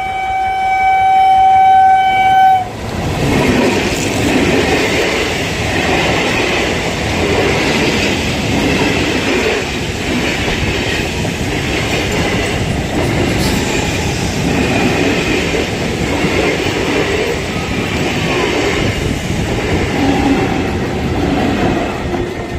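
WAP-7 electric locomotive's horn holding one long, steady blast that cuts off suddenly about two and a half seconds in. After it, the express train rolls past with a steady rumble and the clickety-clack of coach wheels over the rail joints.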